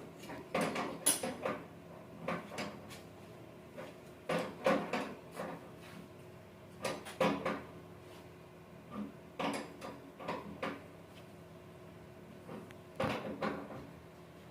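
Short bunches of knocking and clattering, a few sharp knocks at a time, coming every two to three seconds.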